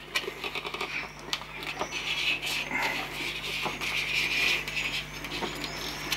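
Thin plasticard sheet pressed and rolled around a metal tube on a cutting mat, giving a run of small irregular clicks, scrapes and squeaks.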